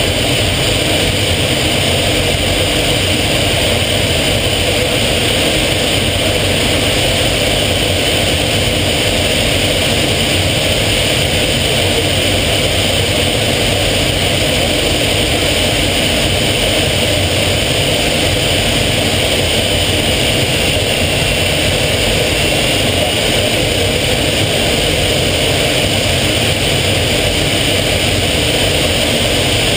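Steady engine and airflow noise heard inside the cockpit of a small aircraft in flight, a loud, unbroken drone with a faint high tone that wavers slightly about two-thirds of the way through.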